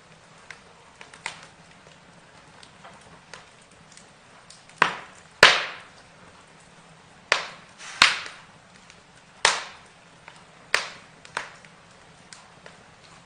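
Burning wood crackling, with about six loud, sharp pops in the middle seconds among fainter crackles.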